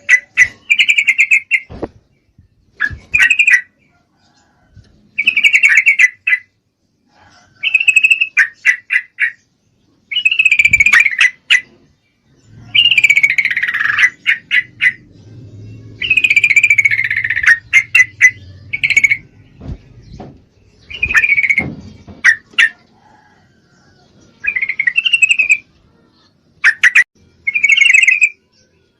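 Yellow-vented bulbul (trucukan) calling, which the title presents as a female in breeding condition calling to a male. Short chattering phrases, each about a second or two long, repeat every couple of seconds.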